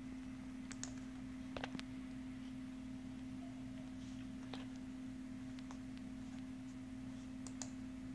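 A steady hum on one low pitch, with a few short clicks scattered through it.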